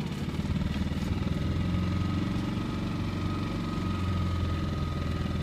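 A small motorboat's engine running steadily at low speed: a low, even drone with a faint high whine over it.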